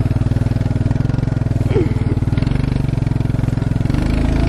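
Four-wheeler (ATV) engine running steadily under way with a fast low pulse, towing a rider on a sled.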